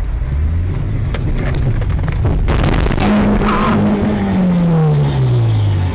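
Road vehicle noise heard from inside a car: a steady low rumble, a burst of rushing noise about two and a half seconds in, then a single tone falling steadily in pitch over the next two seconds or so.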